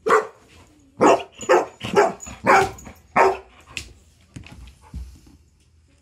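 Bernese Mountain Dog barking: six loud barks in about three seconds, followed by a few softer knocks and scuffles.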